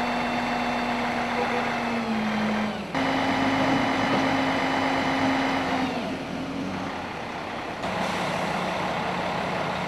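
Fire truck engine running with a steady hum, driving its raised aerial ladder. The pitch drops slightly about two seconds in, and the sound breaks off and changes abruptly near three seconds and again near eight seconds.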